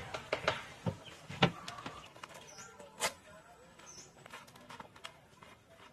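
Footsteps on a packed-dirt path, an uneven run of steps and knocks that is busiest in the first two seconds, with birds calling faintly in the background.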